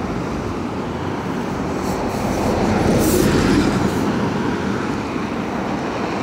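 Road traffic on a wide city street: the hiss of tyres and engines, swelling to its loudest as a car passes close about three seconds in, then easing off.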